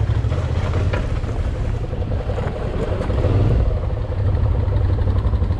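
Suzuki V-Strom 650's V-twin engine running at low revs while the bike is paddle walked slowly up a rough trail, heard close up from the rider's helmet; the engine swells briefly about three seconds in.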